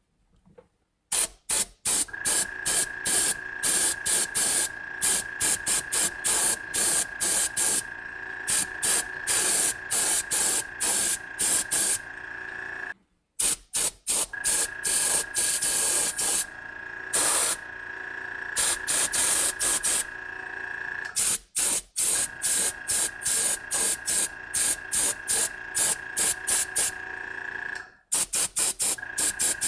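Airbrush spraying paint in many short hissing bursts, over a steady high whine. Everything breaks off briefly three times.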